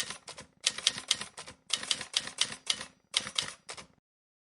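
Rapid keystroke clicks of typing, in four quick runs of about a second each with short pauses between, stopping abruptly about four seconds in.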